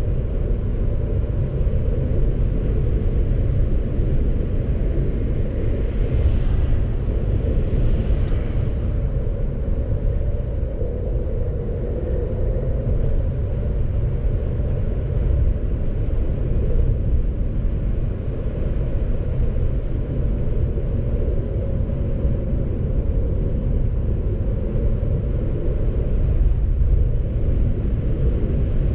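Steady low rumble of a moving car: road and wind noise, with two brief hissing swells about six and eight seconds in.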